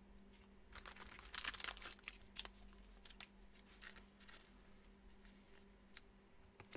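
Trading cards being handled: faint rustling and crinkling about a second in, then scattered light taps and a sharper click near six seconds in.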